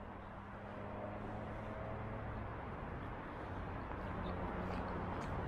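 Low steady rumble of vehicles, growing slowly louder, with a faint hum and a few light ticks over it.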